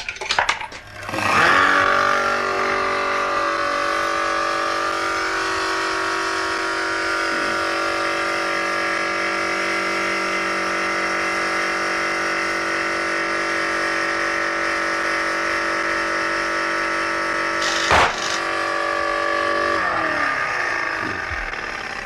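Electric motor of a homemade balloon-blowing machine switched on, running steadily as it inflates a balloon. Near the end the balloon bursts with one sharp bang; the pressure drop trips the pressure switch and the motor winds down.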